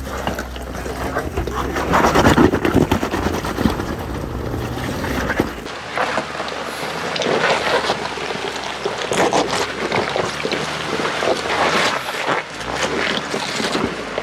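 An off-road 4x4 driving slowly over rough trail ground: engine and tyre noise with irregular knocks and jostling. The sound changes abruptly about six seconds in, with the low hum dropping away.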